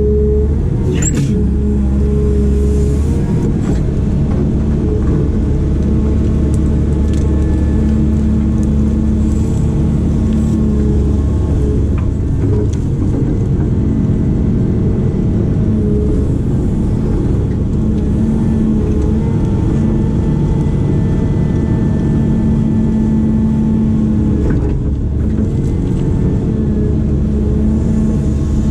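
Diesel engine of a heavy earthmoving machine running steadily under shifting load, with a few sharp knocks, the sharpest about a second in.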